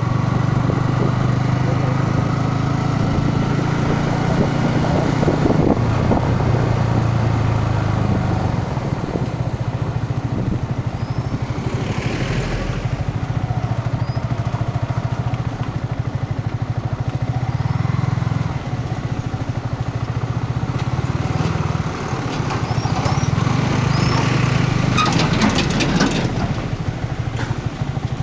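Yamaha R15 V3 motorcycle's single-cylinder engine running steadily while riding, with a rush of road and wind noise. A brief louder rush about twelve seconds in, and a patch of clicks and rattles near the end.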